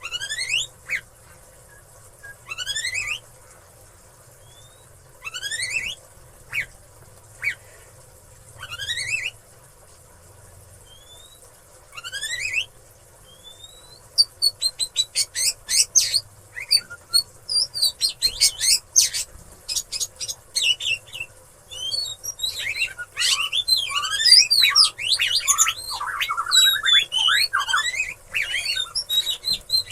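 Oriental magpie-robin (kacer) giving unusual calls: first single rising whistled sweeps a few seconds apart, then from about halfway a fast, continuous jumble of varied short notes.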